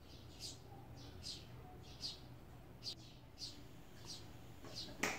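A bird chirping over and over, one short high note roughly every second, over a faint low steady hum. A sharp click sounds near the end.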